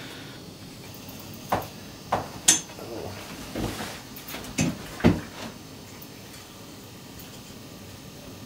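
Clatter from fishing gear being handled in an ice-fishing house: a handful of sharp knocks and taps over the first five seconds or so, then only a steady low hiss.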